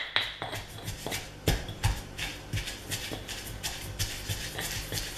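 Stone pestle pounding in a granite mortar, crushing fried dried red chillies, salt, tamarind, curry leaves and onion into sambol. It makes a steady rhythm of dull thuds, two or three a second.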